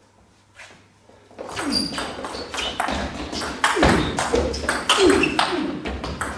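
Table tennis rally: a quiet moment before the serve, then from about a second and a half in a quick run of sharp ticks as the celluloid-type ball strikes the bats and the table. Short squeaks come between the hits.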